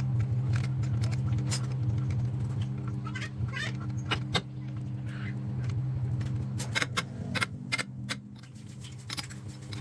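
A lathe's electric motor humming steadily, with many sharp metallic clicks and taps scattered over it, thickest in two clusters midway and near the end.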